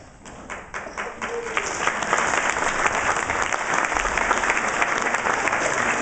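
Audience and schoolchildren applauding. It starts with a few scattered claps and swells into steady applause about two seconds in.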